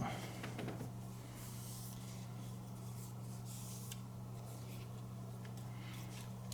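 A couple of faint soft strokes of 9-micron lapping film drawn across a knife's edge on a guided sharpener, over a steady low electrical hum.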